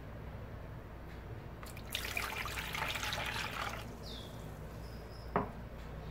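Water poured from a glass cup into a bowl, a splashing rush that lasts about two seconds, followed by a single sharp knock about a second and a half later.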